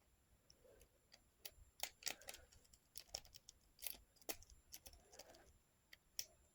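Faint, irregular metallic clicks and ticks of lock-picking tools, a pick and tension tool working in a lock and against each other.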